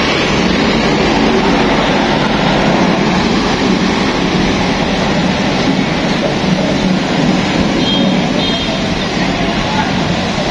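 Road traffic on a town street: a steady wash of engine and tyre noise from passing motorbikes and other vehicles.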